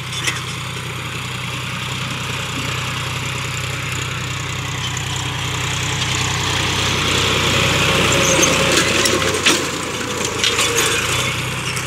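John Deere 5050D tractor's three-cylinder diesel engine running steadily under load while pulling a disc harrow through loose soil, growing louder as the tractor comes close, with the scraping of the harrow discs in the earth and a few sharp clacks near the end.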